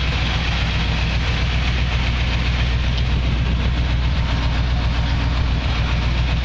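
A 1970 Chevy C10's 350 cubic-inch small-block V8 crate engine idling steadily, with a constant low, even tone.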